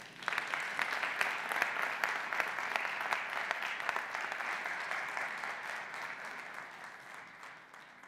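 Audience applauding, a dense patter of many hands clapping that starts just after the talk ends and slowly fades away near the end.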